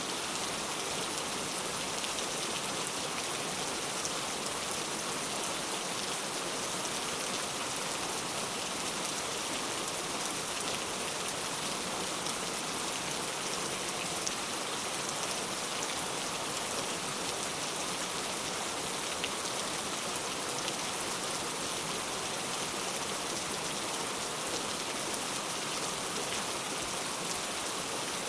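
Steady, even rain falling on a surface, a constant hiss with fine droplet patter and no thunder.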